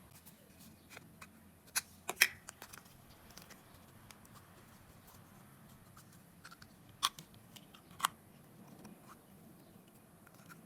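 Plastic Play-Doh toys and tools being handled on a table: a quick cluster of sharp clicks and taps about two seconds in, then two single sharp clicks later on, with quiet handling between.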